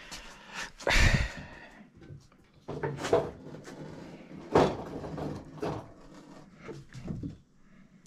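Several dull clunks and knocks of workshop handling, the loudest about a second in, with quieter ones spread through the rest.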